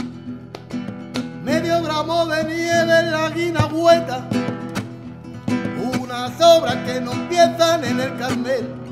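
Acoustic guitar strummed in a Latin rumba rhythm while a man sings live, in two phrases: the first begins about a second and a half in, the second about halfway through.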